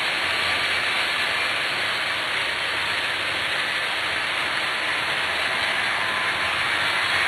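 Model train locomotives running on a layout: a steady whir of small electric motors and wheels on the track, with a hiss and no distinct clicks.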